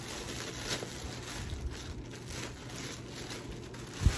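Packaging rustling and crinkling as a package is opened by hand, with a sharp low thump near the end.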